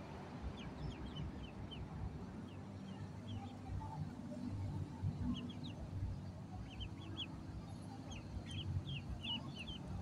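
Ducklings peeping: many short, high peeps, scattered at first and then in quicker runs from about halfway through, over a steady low background rumble.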